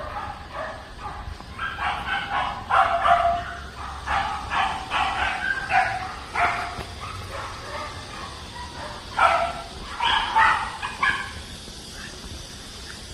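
A dog yipping and giving short high barks in quick runs, loudest about three seconds in and again near ten seconds, then falling quiet shortly before the end.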